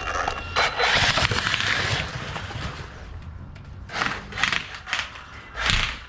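Arrma Typhon TLR 1/8 RC buggy's tyres spinning and scrubbing on tarmac in throttle bursts: one long burst early on, then three or four short ones near the end.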